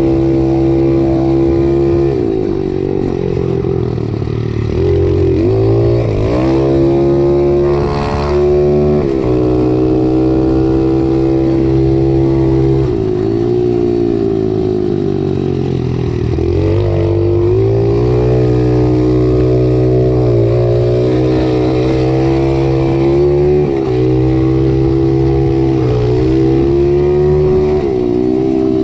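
Pro Tork TR100F pit bike engine running hard under throttle while riding, a steady high engine note whose pitch drops and climbs back up a few times.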